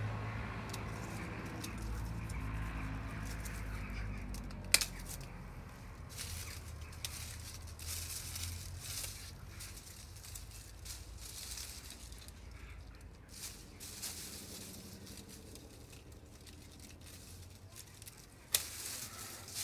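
Hand pruning shears snipping beech twigs, with one sharp snip a little under five seconds in and another near the end. Between the snips, the tree's dry, withered leaves rustle and crackle as the branches are handled.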